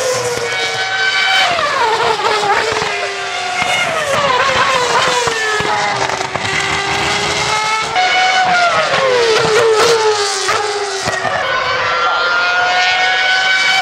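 A string of 2007 Formula One cars passing one after another, their high-revving 2.4-litre V8 engines loud. Each engine note rises and then falls in pitch as the car goes by, and the next car follows within a few seconds.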